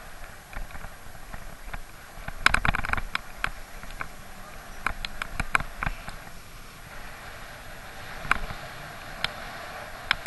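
Wind and road noise from a bicycle in motion, broken by irregular sharp clicks and rattles, most densely about two and a half seconds in, with a few single clicks near the end.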